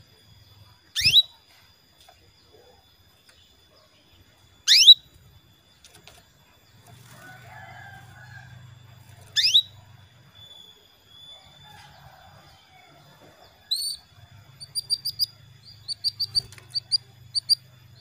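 Female canary calling: three loud, sharp calls that sweep quickly downward in pitch, spaced a few seconds apart. Near the end comes a quick run of about ten short, high chirps.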